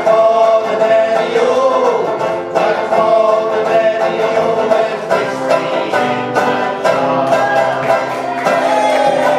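Acoustic folk music played live: picked banjo with guitar, over long held melody notes, closing out the song.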